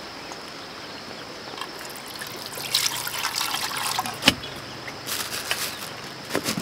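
Liquid poured from a plastic jug in a thin stream into a metal pot of paint, trickling for a couple of seconds from about two and a half seconds in. A sharp knock follows, then a few lighter clatters.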